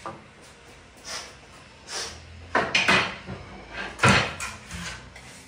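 A series of separate household knocks and clunks, like cupboard doors or drawers being handled: a cluster of them about two and a half to three seconds in and the loudest single knock about four seconds in.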